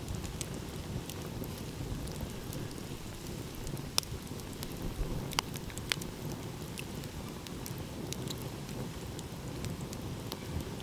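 Wood fire crackling with scattered sharp pops, the loudest about four seconds in and two more a second or two later, over a steady low rumble of ocean waves.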